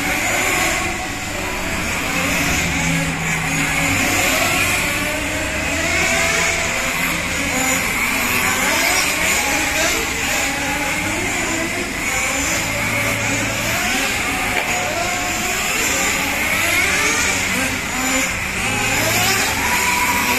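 Several nitro-powered RC touring cars, a Kyosho FW-05T among them, running laps: their small glow engines rev up and fall back over and over as they accelerate and brake, the overlapping pitches rising and falling.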